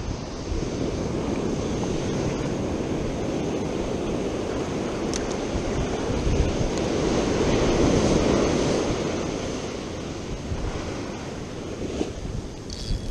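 Ocean surf washing onto a beach, swelling to its loudest about midway through as a wave breaks and runs in, then easing off, with wind buffeting the microphone.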